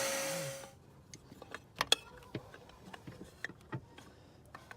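A vacuum cleaner running with a steady hum, switched off and winding down under a second in, followed by scattered small clicks and taps of tools and parts being handled, the sharpest pair about two seconds in.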